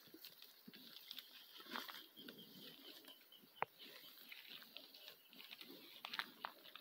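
Faint sounds of cattle eating ration from a tyre feeder, with scattered soft clicks and rustles and one sharper click about three and a half seconds in.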